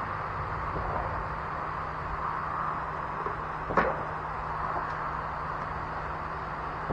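Steady background hum with one sharp click, with a short ring, a little under four seconds in, from parts being handled during work on a riding mower's fuel line.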